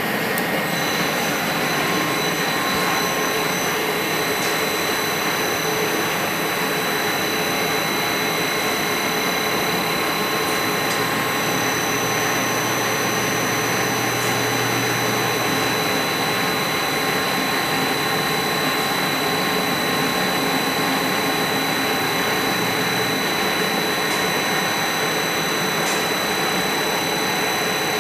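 Milltronics Partner 1 CNC vertical milling machine running under power: a steady whirring noise with steady high whines. A low hum comes in about eleven seconds in and fades out around twenty-three seconds, while the table travels along its axis.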